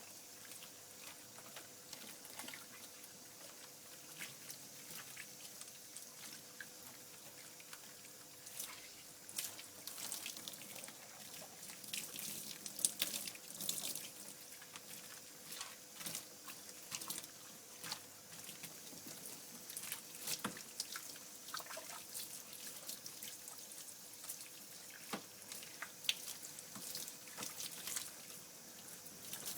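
Running bath water rinsing shampoo out of a dog's coat, with irregular splashes and drips.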